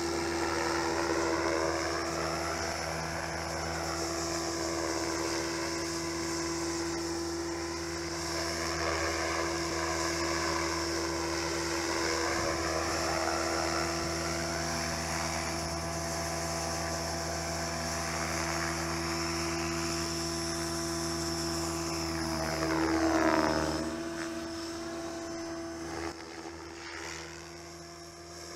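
Tron 5.5 RC helicopter in flight, its rotor and drivetrain making a steady whine at constant head speed. It swells as it passes close about 23 seconds in, then fades as it moves away near the end.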